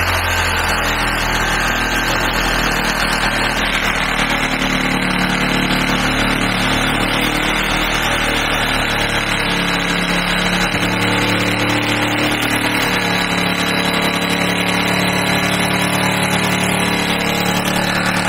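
Electric power saw running steadily as it cuts through a countertop along a traced outline for an oven opening.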